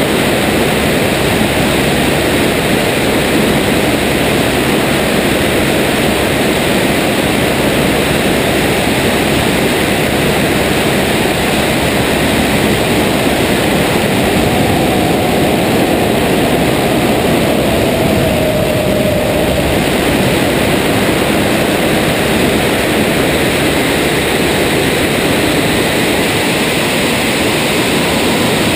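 de Havilland Tiger Moth biplane in aerobatic flight, heard from a wing-mounted camera: loud, steady rush of airflow with the Gipsy Major engine and propeller running beneath it. About halfway through, a faint tone slides down in pitch.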